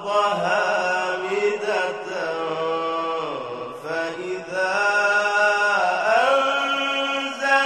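A man reciting the Quran in a melodic, drawn-out tajweed style. He holds long ornamented notes that glide up and down, with a short break about three and a half seconds in.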